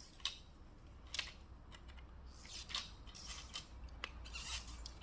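Snips cutting a wooden carpet gripper strip to length: several sharp snips and clicks.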